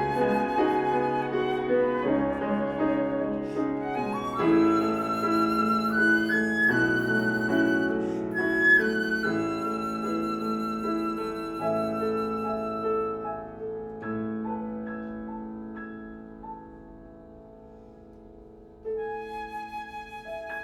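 Flute and piano playing together, the piano sounding sustained chords under the flute's held and moving notes. The music dies down to a quiet held sound, then the flute comes back in with a louder note near the end.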